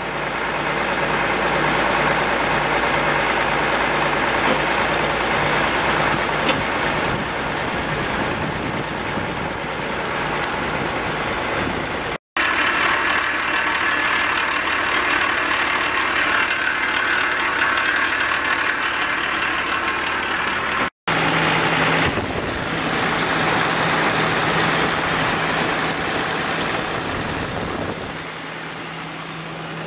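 Case 970 tractor's JI Case 6.6 L six-cylinder diesel engine idling steadily. The sound drops out for an instant twice.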